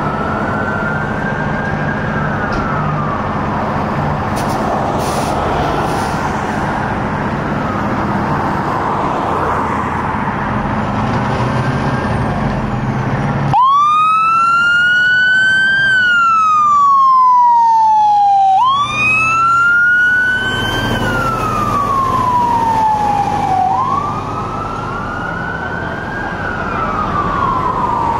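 Fire truck siren wailing, rising and falling in slow cycles of about five seconds, over the rumble of the truck's engine. About halfway through it cuts suddenly to a louder, cleaner wail, and a few seconds later it cuts again.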